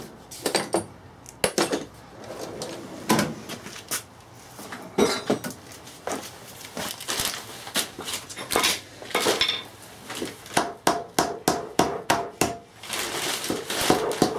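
Irregular knocks and metallic clinks of a plastic hammer tapping on a gearbox casing to free a stuck part, with a quick run of taps about two-thirds of the way through.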